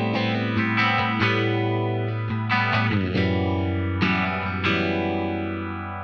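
Electric guitar played through a DOD Phasor 201 phaser pedal, switched on: notes picked over a ringing low note, with the phaser's slow whooshing sweep rising and falling about once every one and a half to two seconds.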